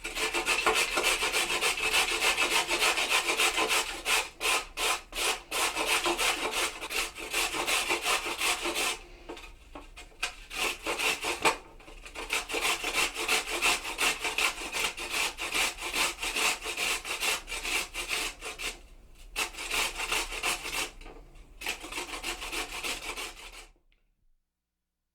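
Carrot being grated on a grater: rapid, rasping back-and-forth strokes, with a few brief pauses, that stop a little before the end.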